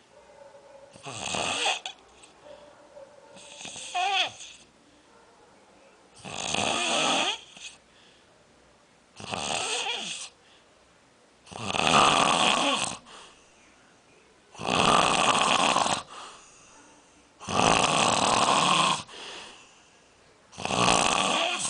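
Snoring: a noisy, hissing breath about once every three seconds, with a short whistling squeak in one breath early on.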